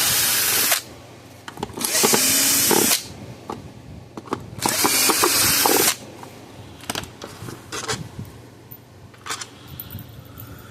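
Power drill-driver running in three short bursts of about a second each, backing out the Phillips screws that hold a Power Wizard PW5000XD electric fence charger's plastic case together. Light clicks and knocks of handling the screws and case follow in the second half.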